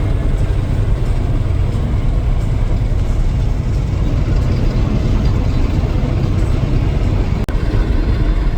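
Steady road and engine noise of a moving vehicle heard from inside the cab, heavy and rumbling at the low end.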